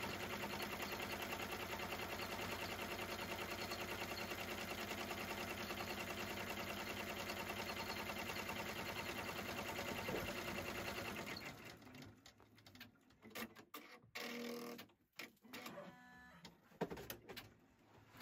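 Embroidery machine stitching at a fast, even rhythm, then stopping about two-thirds of the way through. Scattered clicks and short mechanical sounds follow.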